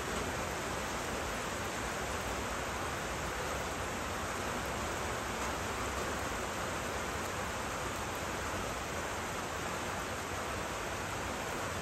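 Steady rain, an even hiss that holds at one level throughout.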